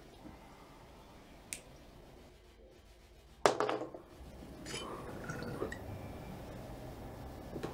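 Water bubbling in a glass bong as a hit is drawn through it, starting suddenly about three and a half seconds in. A short click comes a second or so before.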